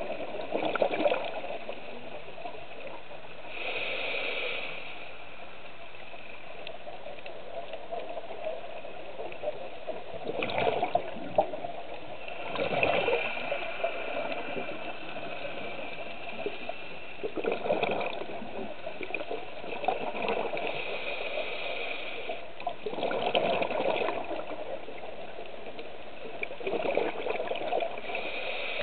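Scuba diver breathing through a regulator underwater: a hissing inhale, then a gurgling rush of exhaled bubbles, repeating every few seconds over a steady underwater hiss.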